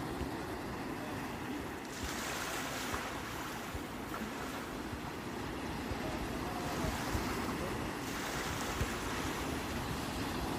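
Sea waves washing onto the shore in a continuous surf, with a new surge about two seconds in and more later on. Wind rumbles on the microphone underneath.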